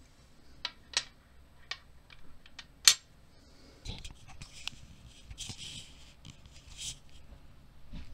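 Small sharp metallic clicks as a key and a brass lock plug are handled, the loudest near three seconds in. Then rustling and bumps from about four seconds as the camera is handled and moved.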